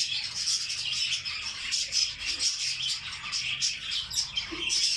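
Young lutino lovebirds chirping, a rapid stream of high, overlapping chirps.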